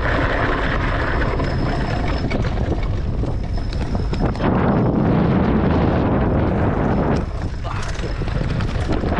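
Wind buffeting the microphone while riding a dual-motor electric bike over a dirt trail, with steady tyre rumble underneath.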